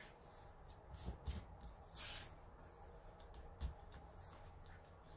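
Faint rubbing and rustling of cardstock as hands press and slide a card panel on a cutting mat, with a few soft taps and a brief swish about two seconds in.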